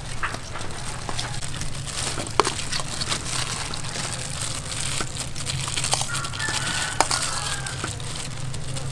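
Handling sounds of stuffing bitter melon with minced pork: a plastic food glove crinkling and a spoon clicking against a stainless steel bowl. Small scattered clicks, the sharpest about two and a half and seven seconds in, over a steady low hum.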